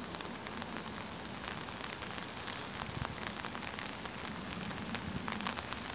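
Steady rain, with many small drops ticking close to the microphone.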